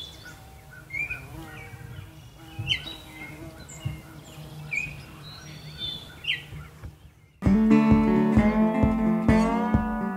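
Birds chirping in short, sweeping calls over a steady low background noise. About seven seconds in this gives way to strummed acoustic guitar music that starts suddenly and is much louder.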